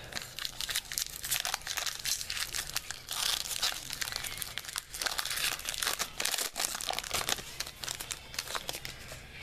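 Foil wrapper of a Bowman baseball card pack being torn open and crinkled by hand, a dense irregular crackling that is busiest in the middle.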